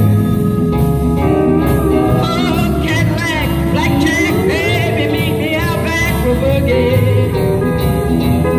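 Live band music from pedal steel guitar and electric guitars, with a woman singing over them; a sliding rise in pitch about four seconds in.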